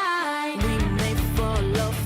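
Background music: a rock track with a sung or lead melody over guitar, in which the bass and drums drop out and come back in about half a second in with a steady beat.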